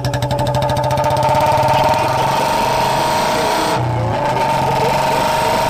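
Motorcycle engine speeding up, its firing pulses quickening over the first two seconds, then running steadily.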